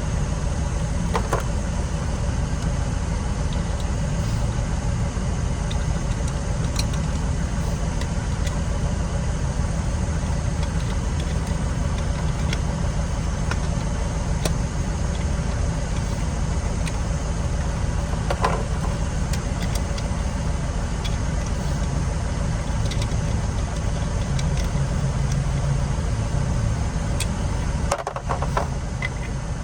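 A steady low engine-like drone, like an idling motor, with a few short clicks and knocks, about a second in, halfway through and near the end.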